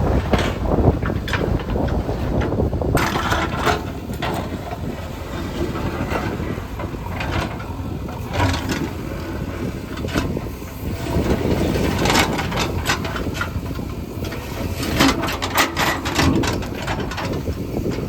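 Diesel engine of heavy construction machinery running steadily, with scattered sharp clatters and knocks that come and go several times.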